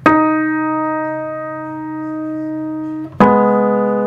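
Piano note struck and left to ring for about three seconds, a note that has a false beat from a wild string. The keys are struck again about three seconds in and once more near the end.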